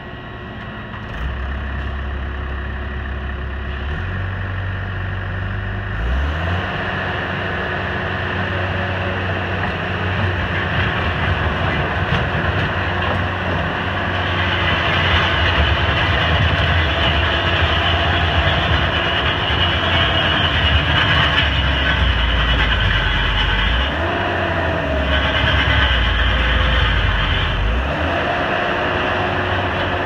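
Case 90XT skid steer loader's diesel engine running, throttled up about six seconds in, as the machine drives on its steel sheep's foot compaction wheels. A whine rises and falls in pitch as it moves and turns.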